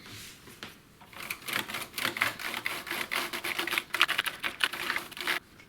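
Rapid, irregular clatter of keys on an HP 9825B's keyboard, many clicks a second. It starts about a second in and stops shortly before the end.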